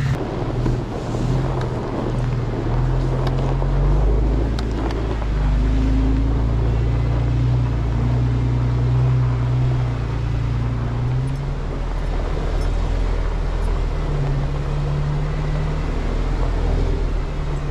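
Vehicle engine running as it drives, its low hum rising and falling in pitch, with road and tyre noise.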